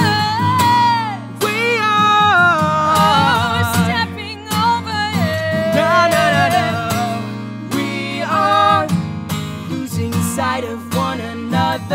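A woman and a man singing together into one microphone, holding and bending long notes, over acoustic guitar.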